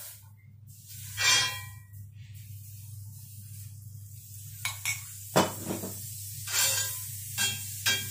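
Butter sizzling as it melts in a hot cast iron frying pan, with a spoon and then a spatula knocking and scraping against the pan several times; the loudest knocks come about a second in and about five and a half seconds in.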